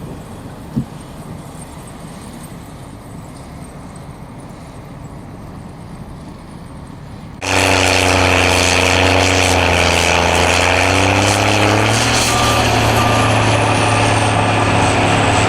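Low steady outdoor noise with one short knock, then a sudden jump to a heavy diesel vehicle's engine running loud and close, its pitch wavering slightly. Faint reversing beeps sound in the last few seconds.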